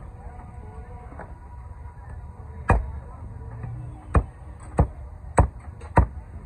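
Heavy butcher's cleaver chopping a skinned chicken into pieces on a wooden log block: about six sharp chops, the first a little under three seconds in and the rest coming roughly every half second to the end.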